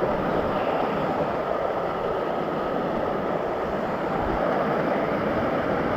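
Steady rushing of a nearby waterfall, an even roar of falling water with no breaks.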